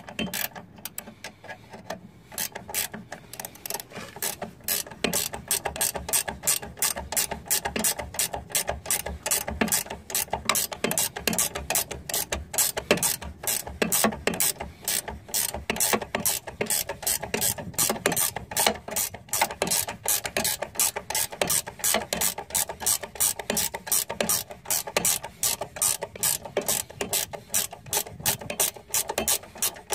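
Socket ratchet clicking steadily, several clicks a second, as it is swung back and forth turning the clamp bolt that holds the suspension strut in the hub knuckle.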